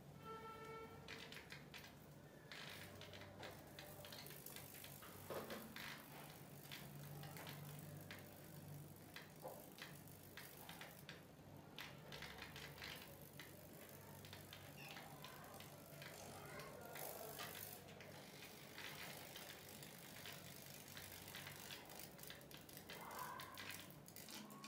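Near silence: faint room tone with scattered small clicks and ticks, and a brief faint pitched tone right at the start.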